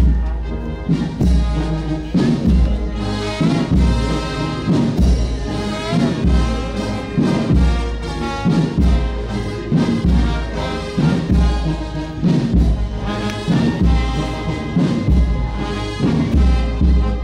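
Brass band music with a bass drum beating about once a second.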